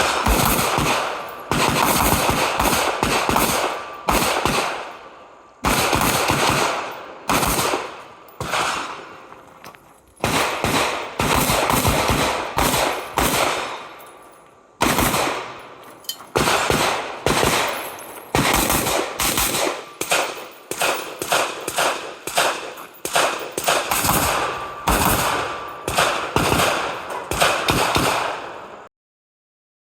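Rifle gunfire: rapid strings of shots in quick succession, each with a ringing tail, broken by brief pauses. The sound cuts off abruptly near the end.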